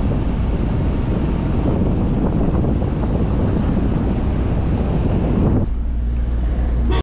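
Wind buffeting a microphone held out of the window of a moving car, over the car's rumble on a dirt road. About five and a half seconds in, the wind noise drops away as the camera comes back inside, leaving a steady low rumble from the car.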